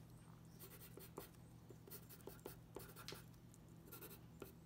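Faint scratching of a Dixon Ticonderoga graphite pencil on drawing paper: a string of short, irregular sketching strokes over a low steady hum.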